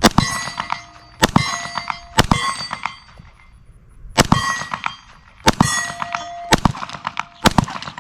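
Glock 19 9mm pistol firing about seven slow single shots, each followed by a short, ringing metallic clang.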